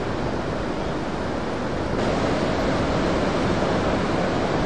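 Steady rush of heavy surf: large waves breaking and whitewater churning, a little louder from about two seconds in.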